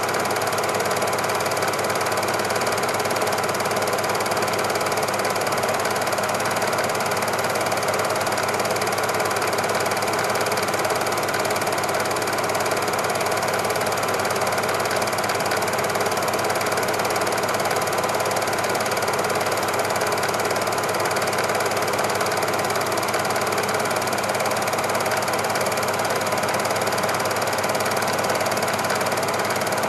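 Steady mechanical running noise, a fine, even clatter that stays exactly the same throughout, with no pulses and no change where the picture cuts.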